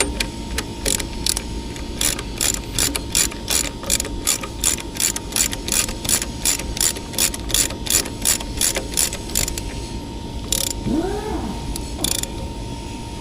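Ratchet wrench clicking in a steady rhythm, about three to four clicks a second, as a bolt holding the generator's PMG is tightened. The clicking stops about ten seconds in, with two single clicks after it.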